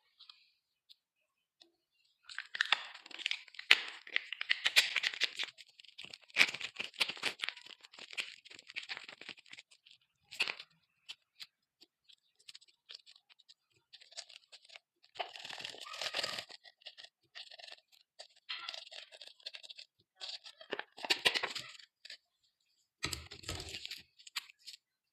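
Slime being squished and pressed, a dense run of crackling and popping that comes in bursts of a few seconds with short quiet gaps between.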